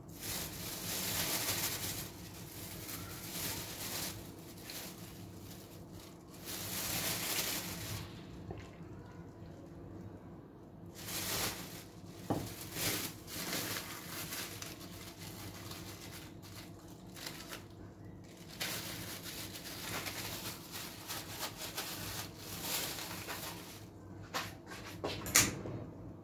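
Thin plastic freezer bags rustling and crinkling in bursts as chopped tomatoes are ladled into them, with a few sharp clicks near the end. A steady low hum runs underneath.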